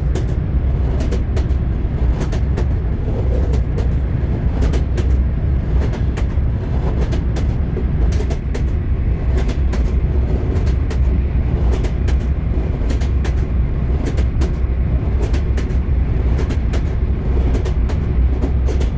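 Train wheels clacking over rail joints, repeated sharp clacks over a steady low rumble of the moving train.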